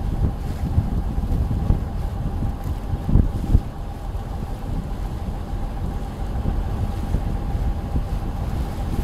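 Wind buffeting the microphone on the open deck of a motor lifeboat under way, with a thin steady hum from the boat's engine beneath it. A couple of stronger gusts hit about three seconds in.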